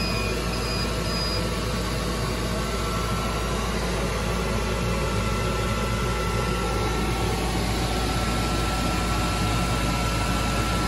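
Steady whir and hum of a laser cutter's ventilation fans running, with a faint high tone above it.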